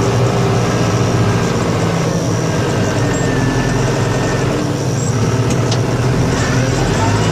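Engine of a snow-plowing vehicle running steadily at an even pitch.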